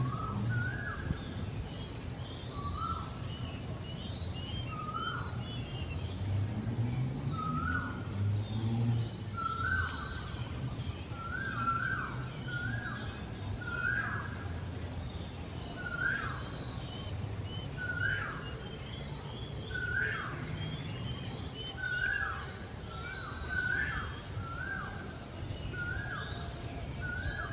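Birds calling: one repeats a short call that dips in pitch about once a second, with higher, quicker chirps from others, over a low steady background rumble.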